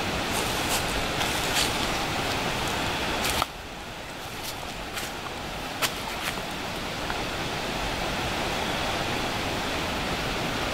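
Footsteps crunching and scuffing on dry leaves and rocks, a handful of separate steps, over a steady hiss. The hiss drops abruptly about three and a half seconds in.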